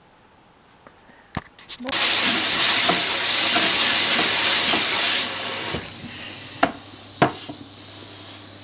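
A kitchen sink spray tap runs loudly onto a diatomaceous-earth bath mat as the mat is scrubbed with steel wool. The water starts about two seconds in and cuts off suddenly after about four seconds. A click comes just before it, and two knocks follow.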